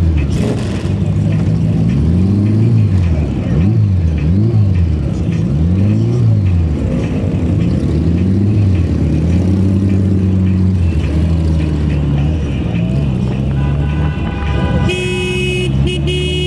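Motorcycle engines revved in repeated throttle blips, each rising and falling in pitch about once a second, then settling into a steadier drone. Near the end, vehicle horns honk with a long, steady blare.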